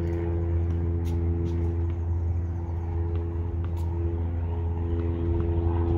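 Steady low machine hum with several even tones layered over it, like an engine or motor running, and a few faint sharp knocks.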